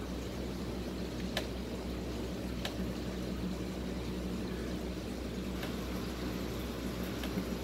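Steady low hum with a faint even hiss, broken by a few soft, brief clicks.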